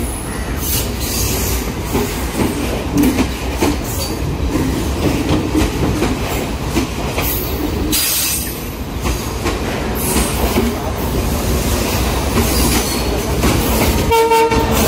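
Express passenger train carriages rolling past at low speed as the train pulls out of the station, with a steady rumble and wheels clicking over the rail joints. A brief pitched tone sounds near the end.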